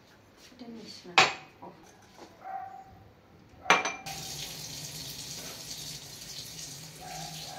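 Two sharp clatters of crockery, one about a second in and a louder-level one a little before the middle, then a steady hiss that starts abruptly about four seconds in and carries on.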